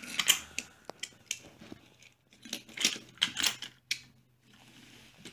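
Small die-cast toy cars clicking and knocking against each other and on a wooden floor as a child's hand pushes them: an irregular run of sharp clicks and knocks, thickest about halfway through.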